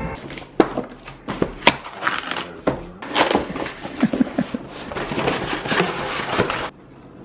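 Close handling noise: rustling and crinkling with many irregular clicks and knocks, stopping shortly before the end.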